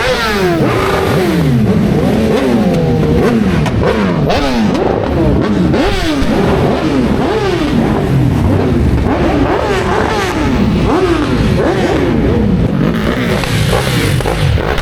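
Several motorcycles riding past, their engines revving up and dropping in pitch again and again, one after another and overlapping.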